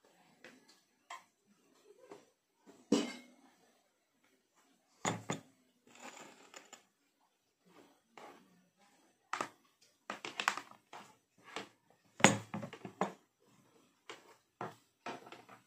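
Scattered knocks and clatter of an electric cooking pot being set down on a table and its power cord being handled, with quiet gaps between; the loudest knock comes about twelve seconds in.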